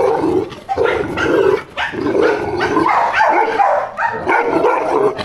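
A Pakistani bully dog barking repeatedly, a run of barks about two a second.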